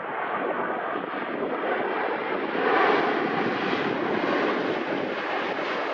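Boeing 787-9 Dreamliner's jet engines, a steady rushing noise that swells about three seconds in and grows brighter toward the end.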